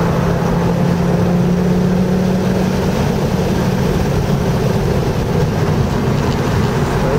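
Car engine running under load at track speed, heard from inside the cabin over road and tyre noise; its steady note eases a little lower about three seconds in.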